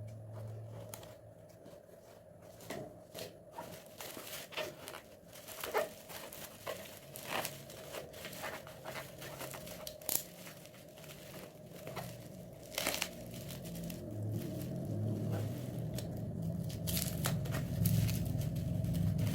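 Packaging being handled and opened: irregular crinkling, crackling and tearing. A low hum comes in during the last few seconds.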